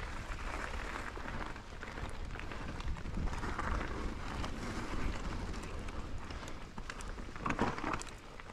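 Mountain bike riding up a short climb on a dirt trail: tyres rolling over gravel and roots with many small clicks and rattles over a steady low rumble, and a louder rush about seven and a half seconds in.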